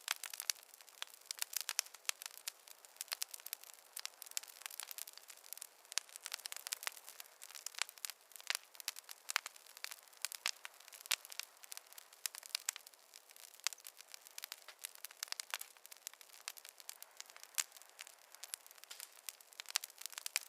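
Wood fire crackling in a fireplace: a steady stream of irregular pops and snaps over a soft hiss, with no low roar of flames.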